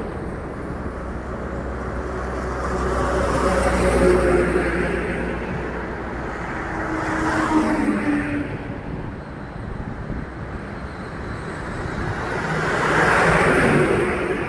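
Heavy trucks driving past on a highway one after another, their engine and tyre noise swelling as each one nears and fading as it goes by, about three times.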